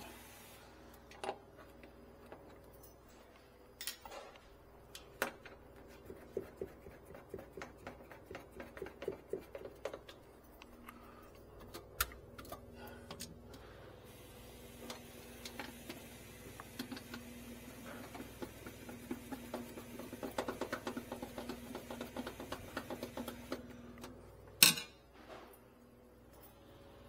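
Hand work with a screwdriver on a refrigerator freezer's plastic light and thermostat trim: runs of small rapid clicks and scattered light knocks, with one sharper knock near the end.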